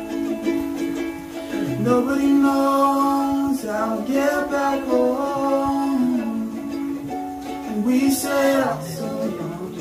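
Ukulele strummed steadily while a young man sings into a microphone, holding long notes in several phrases that start about two seconds in.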